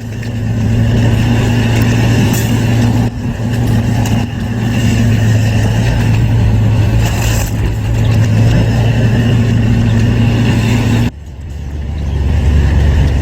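A motor running steadily with a low hum. After a brief dip about eleven seconds in, it carries on at a lower pitch.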